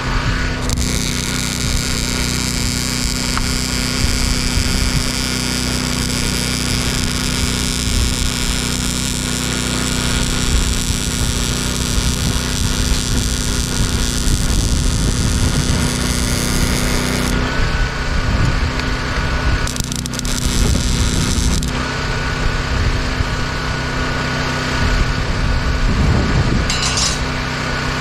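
Angle grinder spinning against a steel pole for about sixteen seconds, then a shorter second burst, over a small engine idling steadily underneath.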